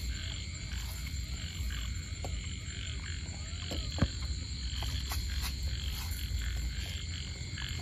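Frogs croaking in a quick run of short calls, about three a second, over a steady high-pitched whine. A few sharp clicks break in, the loudest about four seconds in.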